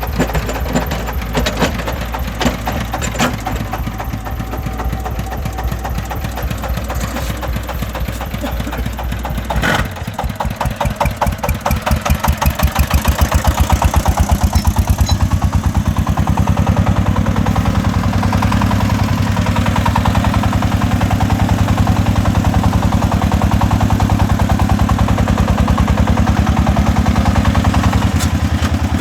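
Single-cylinder diesel engine of a công nông farm tractor-truck chugging with steady, even beats. About ten seconds in there is a knock, and the engine grows louder with heavier, stronger beats, as when working under load.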